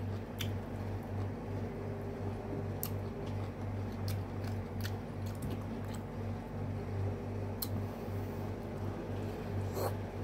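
A person chewing soft dumplings, with squishy mouth sounds and a few sharp clicks of chopsticks against the bowl, over a steady low hum.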